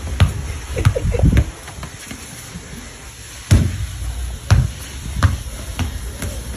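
A series of irregular heavy thumps and knocks, about six of them, spaced unevenly, with a short wavering pitched sound about a second in.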